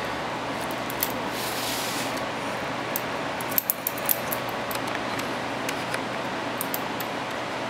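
Small metallic clicks and clinks of a watch's metal link bracelet and case being picked up and handled, with a quick run of louder clicks a few seconds in, over a steady background hiss.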